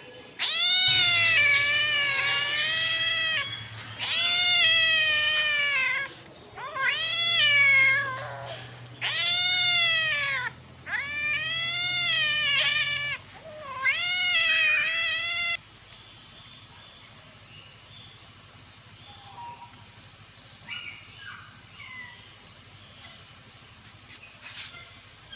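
Kittens meowing for food: six long, loud meows, each rising and then falling in pitch. After about sixteen seconds the meowing stops, leaving a low background with a few faint chirps.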